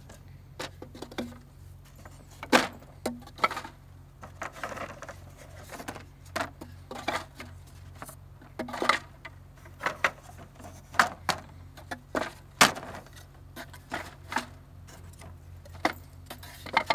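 Wooden Langstroth deep frames knocking against one another and against the wooden brood box as they are slid into place, a string of irregular clacks, the loudest about two and a half seconds in and again about twelve and a half seconds in, over a steady low hum.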